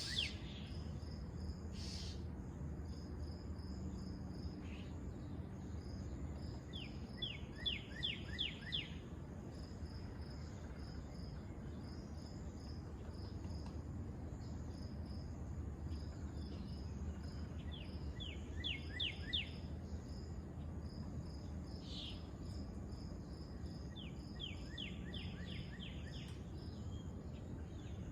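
Outdoor nature ambience: a steady high insect-like pulsing, with a run of five to seven quick downward-sliding chirps three times, over a low rumble.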